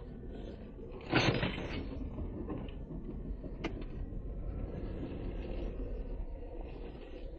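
Jeep Wrangler Rubicon engine and drivetrain running steadily as it crawls over a snowy trail, heard from inside the cabin. A brief loud rush of noise about a second in, and a single sharp click a couple of seconds later.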